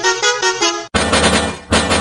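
Musical bus horn playing a tune of fast-pulsing, stepping notes. About halfway through it cuts abruptly to a harsher, fuller, buzzing horn pattern.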